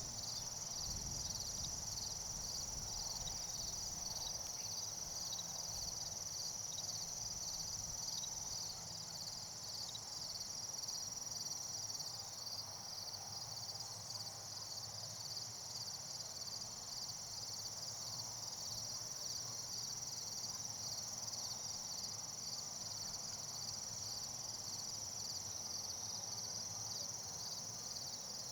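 Chorus of insects, crickets or katydids, trilling together without a break: a dense, high-pitched, rapidly pulsing drone.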